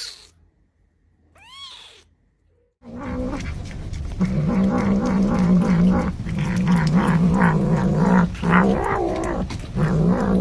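Domestic cat meowing twice briefly, then yowling loudly in long, wavering drawn-out stretches, breaking off several times.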